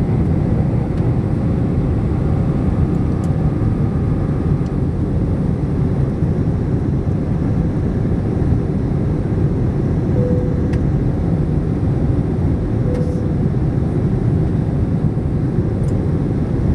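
Steady cabin noise inside an Airbus A321-211 in climb: its CFM56-5B engines and rushing airflow make a low, even drone, with a few faint clicks.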